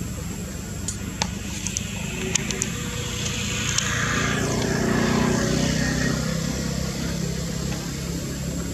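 Road vehicle engine noise: a steady low hum, with a vehicle passing by that swells about four seconds in and fades again. A few sharp clicks near the start.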